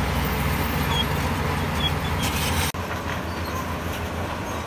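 Heavy diesel engine of earthmoving machinery running steadily at a low pitch, with an abrupt break a little past halfway, after which it runs slightly quieter.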